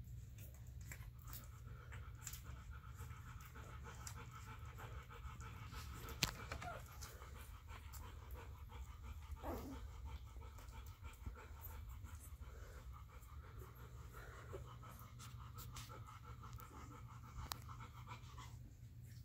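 Litter of newborn golden retriever puppies nursing, making a faint, fast, rhythmic suckling-and-breathing sound with scattered small clicks. A short falling squeak comes about halfway through, and the rhythmic sound stops shortly before the end, over a steady low hum.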